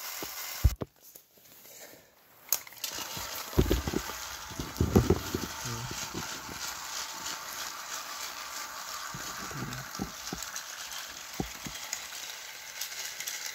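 Battery-powered Thomas & Friends toy engine running along plastic track: a steady whirring rattle. It drops out almost completely for a second or two shortly after the start, and a few dull thumps come around four to five seconds in.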